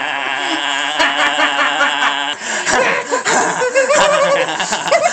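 A young man laughing. For about the first two seconds it is one long even-pitched note, then it breaks into ordinary choppy laughter.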